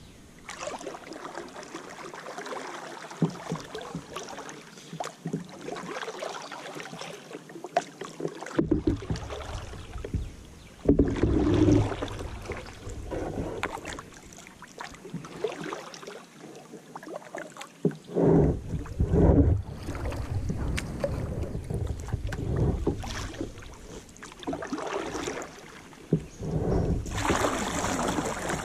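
Kayak paddle strokes dipping and splashing in lake water, with gusts of wind buffeting the microphone now and then.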